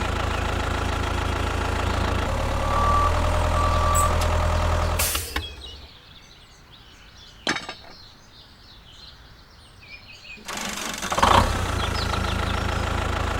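A mini tractor's engine runs steadily, with two short high beeps about three and four seconds in. The engine cuts out abruptly at about five seconds. After a quiet stretch with one click, it comes back near the end.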